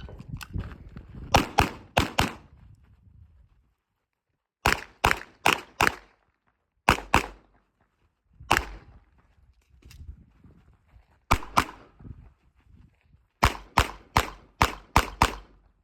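Pistol shots fired in quick pairs and fast strings of four to six, each a sharp crack: practical-shooting fire on a stage, engaging targets with two rounds apiece.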